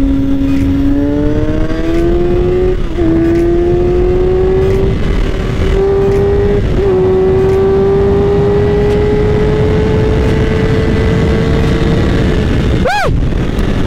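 Sport bike's inline-four engine pulling under way, its pitch climbing steadily through the gears with short dips at upshifts about 3 and 7 seconds in. Near the end the engine pitch rises and falls quickly, like a throttle blip.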